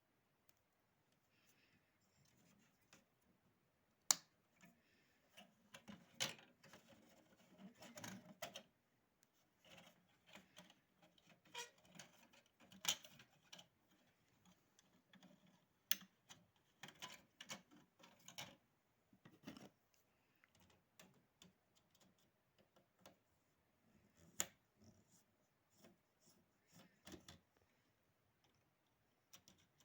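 Small parts and hand tools being handled while an electric fan is repaired: irregular clicks, taps and short scraping and rustling sounds, with a few sharper clicks scattered through.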